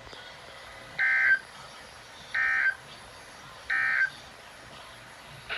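Emergency Alert System end-of-message data tones: three short, identical bursts of warbling digital data about a second and a half apart. They mark the end of the severe thunderstorm warning broadcast.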